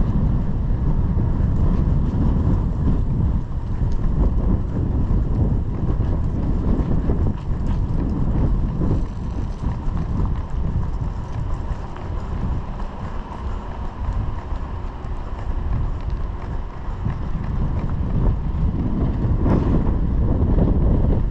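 Wind buffeting the microphone, a loud low rumble that gusts up and down.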